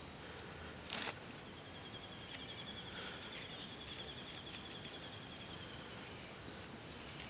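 Fingers rubbing and crushing lumps of pipe clay on a rock: faint gritty clicks, with a brief louder scrape about a second in. A high, rapidly pulsing animal trill runs for several seconds in the background.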